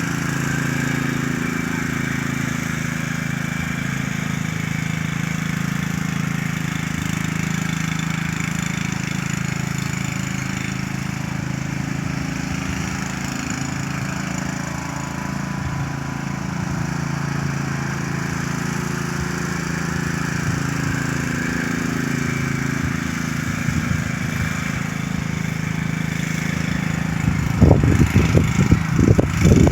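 Troy-Bilt lawn mower engine running with a steady, slightly wavering drone. Near the end, a run of irregular loud thumps comes in over it.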